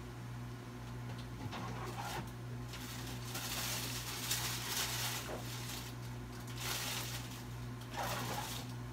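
Food sizzling in a lidded pan over a lit gas burner: an irregular hiss that swells from about three to five seconds in and again near the end, over a steady low hum.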